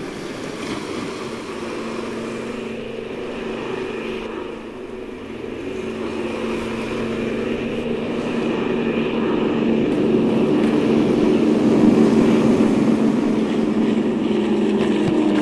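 Propeller airplane engines droning as the plane approaches, growing steadily louder to a peak about twelve seconds in.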